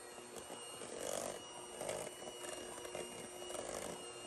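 KitchenAid electric hand mixer running on low speed, a steady motor whine, its beaters working through thick cream cheese and whipped cream in a stainless steel bowl. The sound swells a little about one and two seconds in.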